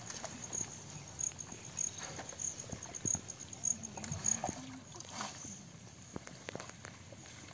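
Small splashes, sloshing and knocks of hands working in shallow muddy water, with a high-pitched insect chirping steadily a little under twice a second until about halfway through.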